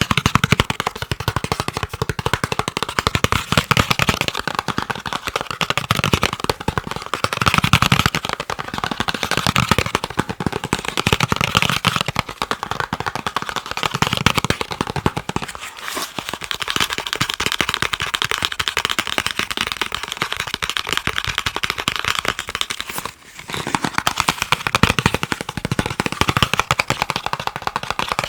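Fast tapping on chocolate: a rapid, dense run of taps that breaks off briefly about 23 seconds in, then resumes.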